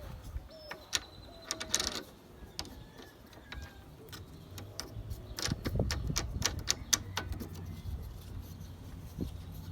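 Scattered clicks and knocks from tightening the screws and bolts on a lawn mower's handle, with a quick run of clicks about five to seven seconds in.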